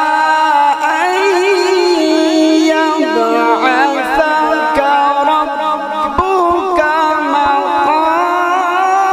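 A man's voice reciting the Quran in melodic tajweed style into a microphone, holding one long, ornamented phrase whose pitch winds up and down without a break.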